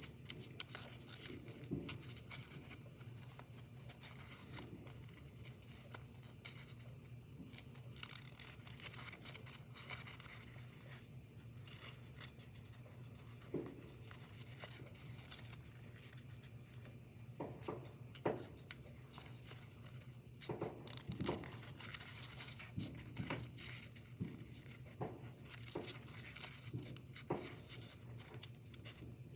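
Faint rustling and crinkling of folded paper as fingers press and shape the layered points of a paper origami model. The small rustles come and go, growing more frequent in the second half, over a low steady hum.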